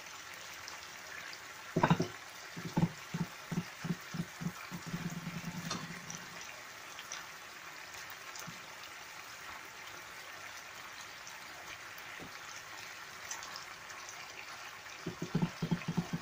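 A pot of pork and chicken adobo simmering, a steady bubbling hiss. A loud knock comes about two seconds in, then a quick run of low rattling clunks, and more clunks near the end.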